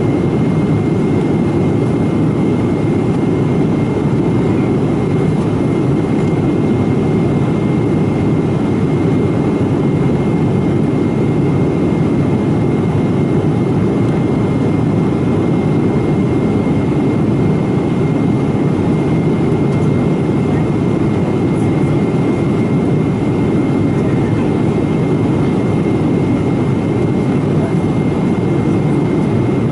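Steady cabin noise of a Boeing 777-200ER in its climb: the drone of its Pratt & Whitney PW4000-series turbofans and the rush of air past the fuselage, with a thin, steady high whine over it.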